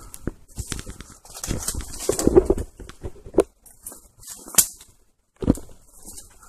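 Footsteps crunching and rustling through dry fallen leaves in uneven bursts, with a few short pauses.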